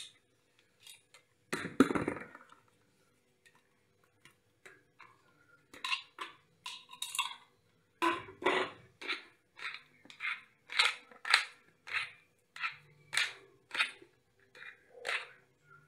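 Ripe plums crushed between the fingers in a plastic bowl. There is one loud crush about two seconds in, then from about six seconds a run of short, separate squishing crushes, roughly two a second.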